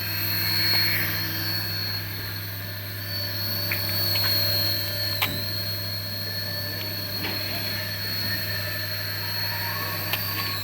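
Small electric motor of a remote-control toy whirring steadily with a high, even whine, with a few light clicks; the whine stops at the very end.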